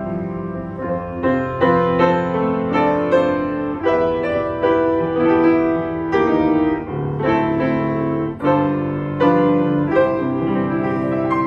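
A 1981 Yamaha W106B upright piano being played: a continuous passage of chords and melody notes, each struck note ringing and overlapping the next.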